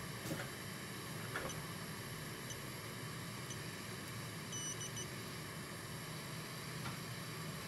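Steady hiss and low hum of bench equipment running, with faint high ticks about once a second and a short high electronic beep of three quick pulses about halfway through.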